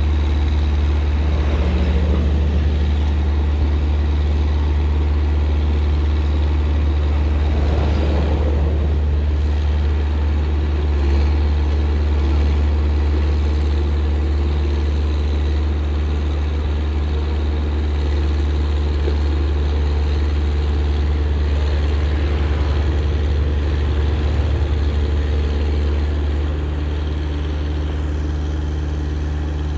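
Large engine idling steadily with a low, even hum, with a brief faint swell of rougher noise about eight seconds in.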